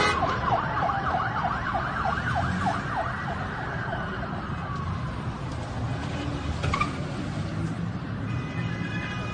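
Emergency vehicle sirens: one in a fast yelp, about four sweeps a second, another in a slow rising and falling wail, both fading out about halfway through, over a low rumble of traffic. A single sharp crack sounds about two-thirds of the way in, and a steady high tone comes in near the end.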